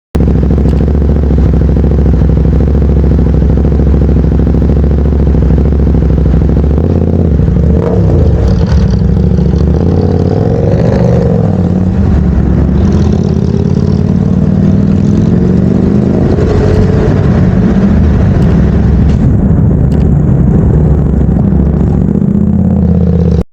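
Jeepney diesel engines running in traffic, a steady low drone. About seven seconds in, the engine note shifts and an engine revs up and down.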